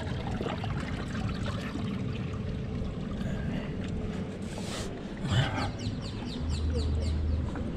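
Seawater trickling and sloshing among shoreline rocks, a steady wash with a low rumble underneath. Partway through comes a brief louder swell, followed by a quick run of small clicks.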